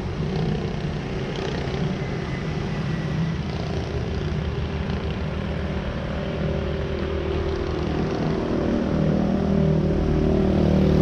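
A motor vehicle's engine running close by, steady, with road noise, growing somewhat louder near the end.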